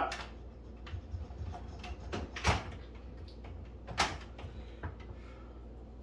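A few sharp plastic clicks and knocks from handling a microwave's control panel and its wiring connectors, the loudest about two and a half seconds in and another at four seconds, over a low steady hum.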